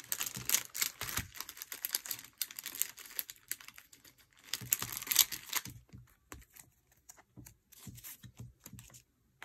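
Plastic binder pocket pages and card sleeves rustling and crinkling, with many small clicks and taps, as photocards are handled and slid into them. It is busiest in the first three seconds and again around five seconds in, then thins to scattered ticks.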